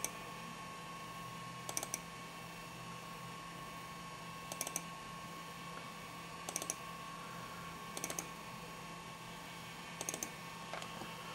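Computer mouse button clicked in quick double- and triple-clicks, a cluster every couple of seconds, over a steady faint electrical hum.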